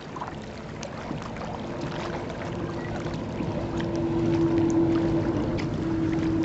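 Small boat's motor running steadily over the rush of water, its hum coming in under two seconds in and growing louder.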